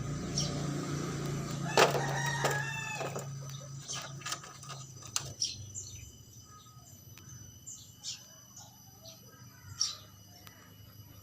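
A rooster crowing once, about two seconds in, over a steady low hum that fades away. A few short high bird chirps follow.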